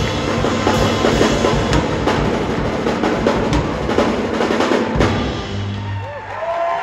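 School jazz band playing loudly: horns, piano and mallet percussion over a driving drum kit. The band cuts off on a final accented hit about five seconds in, leaving a short held low note as the piece ends.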